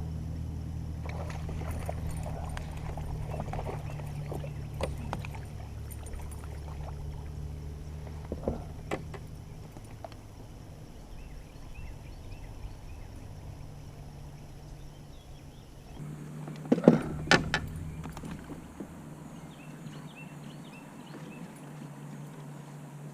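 Kayak on a flowing river: a steady low rumble of water and wind with scattered light knocks, and two sharp knocks close together near the end. The deep part of the rumble drops away partway through.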